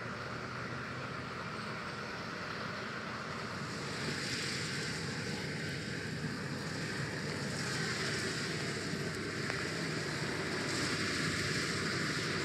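Farm machinery running steadily: first a tractor pulling a trailer through tall grass, then, from about four seconds in, a Claas Lexion 760 TerraTrac combine harvesting protein peas. The engine hum sits under a wide, steady hiss that grows louder once the combine is heard.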